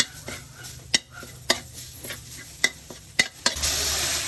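A metal cooking utensil knocks against a pot about six times while stirring. Near the end a steady sizzling hiss starts, as food hits hot oil in the pan.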